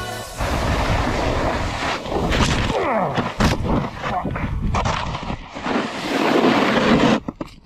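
Snowboard sliding and scraping over packed snow, with wind buffeting the microphone. About three seconds in come the thumps and scuffs of a crash as the rider tumbles into the snow; the sound cuts off near the end.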